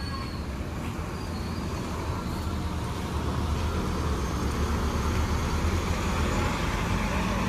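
A bus's diesel engine rumbling steadily amid road traffic, growing gradually louder as it approaches.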